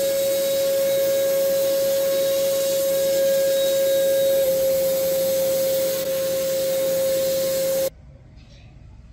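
Sandblasting gun firing compressed air and abrasive in a blast cabinet: a loud, steady hiss with a steady whine underneath, stripping red paint off a small model car panel down to bare metal. It cuts off suddenly near the end.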